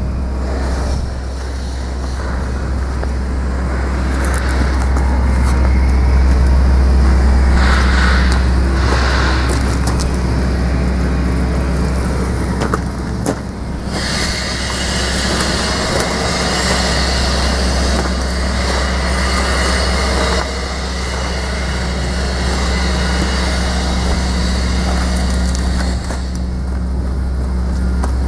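Getman A64 boom truck's Mercedes 904 diesel engine idling steadily, a low, even hum. A brighter hiss joins about halfway through and drops away near the end.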